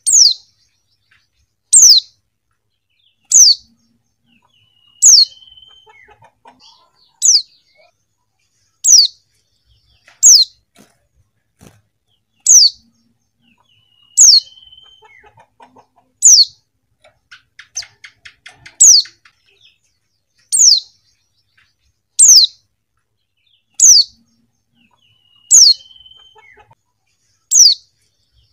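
Female white-eye (pleci) calling: a short, high note slurred downward, repeated evenly about every one and a half to two seconds, with fainter soft chirps between some calls.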